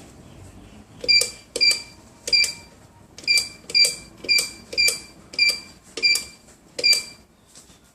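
Keypad of a phone top-up vending machine beeping with each button press: about ten short beeps of the same pitch, each with a small click, at an uneven pace over some six seconds, as a phone number is keyed in.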